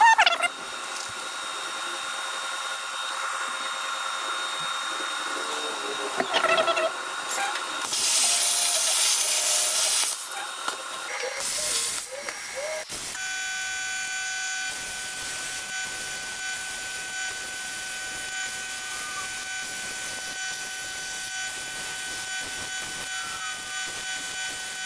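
CNC plasma table cutting steel plate: the plasma torch gives a steady hiss with a high whine. Before that there is steady machine hum, and a louder burst of hissing about a third of the way in.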